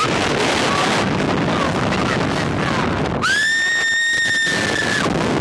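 Wind rushing over the microphone of a camera mounted on a fast-moving thrill ride, with a rider's long, high-pitched scream starting about three seconds in and held for nearly two seconds.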